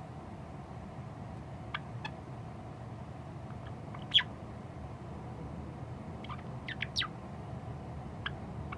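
White Java sparrow beginning its subsong: scattered short, high chirps and notes, with a louder note about four seconds in and a quick run of three or four notes about two-thirds of the way through.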